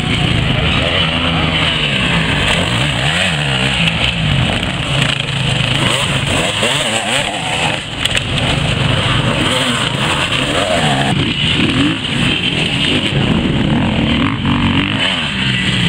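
Off-road dirt bike engines revving hard, the pitch repeatedly climbing and dropping with throttle and gear changes as the bikes race over the dirt track.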